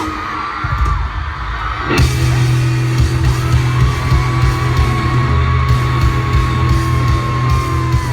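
Live pop-rock band playing loudly in an instrumental stretch between sung lines, with crowd yelling. The full band comes in with a hard hit about two seconds in, then plays on steadily under a long held high note.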